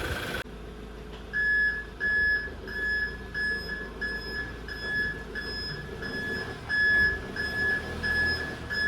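Electronic beeper sounding a single high tone on and off, about three beeps every two seconds, starting about a second and a half in.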